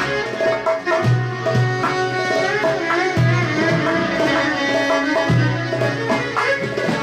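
Traditional orchestra music: a violin plays a melody with gliding notes over percussion keeping a steady beat, with a deep low note sounding about every two seconds.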